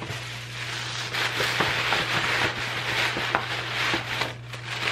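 Tissue paper rustling and crinkling as it is handled and stuffed into a paper gift bag, with many small irregular crackles. A steady low hum runs underneath.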